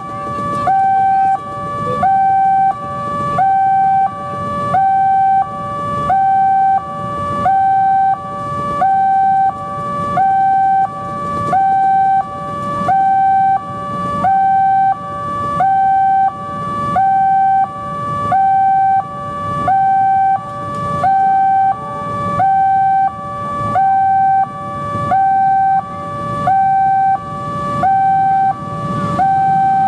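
Railway level-crossing warning alarm sounding a repeating two-tone electronic signal, a higher tone then a lower one, the pair coming round about every second and a third, the warning that a train is approaching. A diesel locomotive's low rumble swells faintly underneath near the end.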